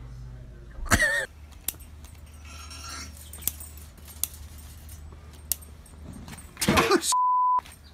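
A person's short shout about a second in, then a few sharp metallic clicks of tongs against a small charcoal kettle grill. Near the end another loud shout, followed by a steady half-second beep tone.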